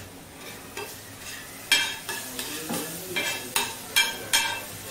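Steel spatula stirring and scraping onion-tomato masala on a hot flat tawa, the masala frying with a faint sizzle. From a little under halfway in come about five sharp metallic clinks of the spatula striking the tawa, roughly every half second.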